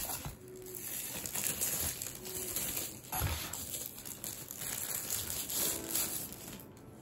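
Thin protective wrapping crinkling and rustling as it is pulled off a small SSD enclosure by hand, with a soft knock about three seconds in.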